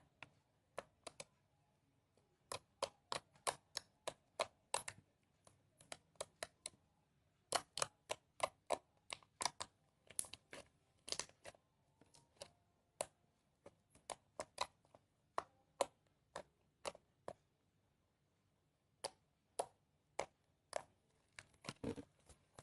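Foamy glue-and-borax slime squeezed and pressed by hand, giving a run of sharp, irregular clicks and pops as air pockets burst, with a short lull a little past the middle.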